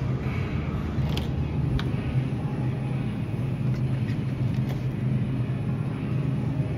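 Steady low hum of a supermarket's refrigerated dairy case, with a couple of brief clicks about one and two seconds in.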